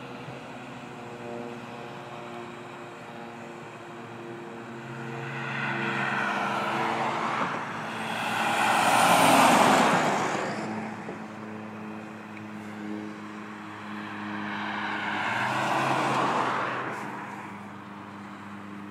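Traffic passing on the highway: one vehicle goes by close about halfway through, the loudest moment, and another a few seconds before the end, each swelling up and fading away. A steady low hum runs underneath.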